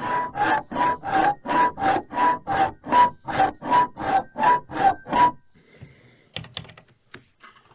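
A foley prop worked in steady rhythmic strokes, about three a second, to imitate the whirring of an aircraft's propellers; each stroke carries a pitched tone that alternates between two notes. It stops about five seconds in, followed by a few light clicks and knocks.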